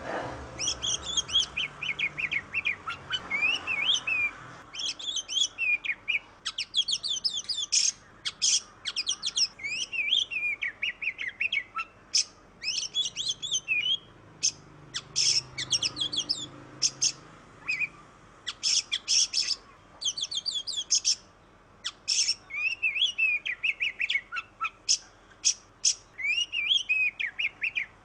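Oriental magpie-robin (kacer) singing a long, varied song: whistled, gliding phrases mixed with bursts of quick, harsh chattering notes, with brief pauses between phrases.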